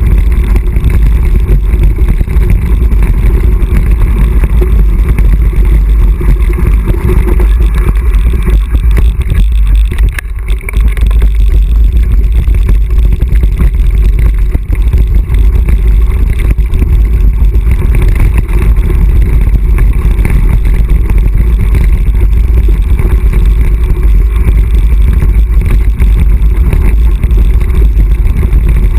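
Loud, constant wind rumble on an action camera's microphone during a fast mountain-bike descent, mixed with the rattle and rolling noise of the bike on a gravel track. It dips briefly about ten seconds in.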